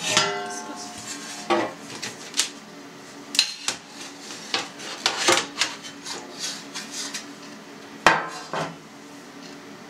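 Stainless steel trays and cheese-press parts clattering and clanking as they are handled and set down, with a ringing clang right at the start and a loud clank about eight seconds in.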